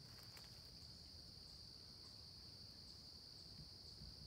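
Faint, steady chorus of insects in late-summer woods, a continuous high-pitched trill that neither starts nor stops.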